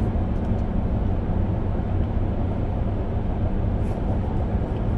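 Steady low rumble of road and drivetrain noise inside the cab of a 2025 Ram 1500 Limited pickup driving at a constant speed.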